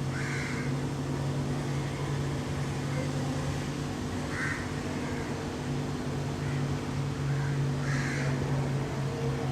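A crow cawing three times, about four seconds apart, over a steady low hum.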